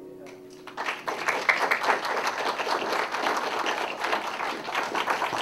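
The last notes of an acoustic guitar die away, and about a second in an audience breaks into steady applause.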